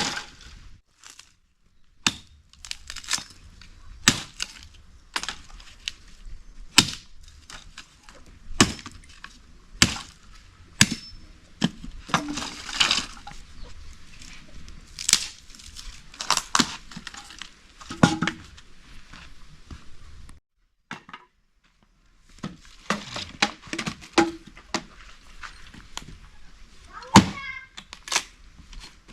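Irregular sharp cracks and knocks, about one a second, with a short break about two-thirds of the way through.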